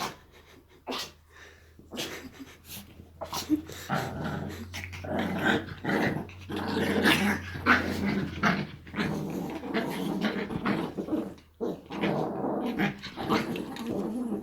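Chihuahuas growling at each other in play, with an occasional yip. Short scattered sounds at first, then continuous growling from about four seconds in, with a brief pause near the end.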